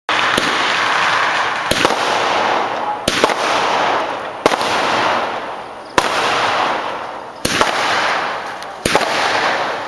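Fireworks going off: seven sharp bangs, about one every second and a half, each followed by a dense hiss that fades away.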